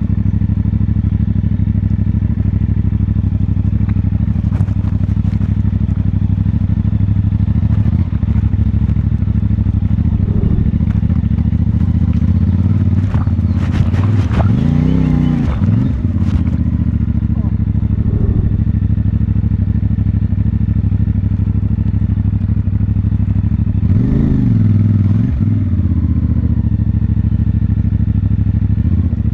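CFMoto 450MT's parallel-twin engine running steadily at low revs, revved up and back down briefly twice, about halfway and again near the end. A burst of clattering comes with the first rev.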